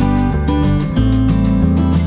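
Background music playing steadily, with notes changing every fraction of a second over a low bass line.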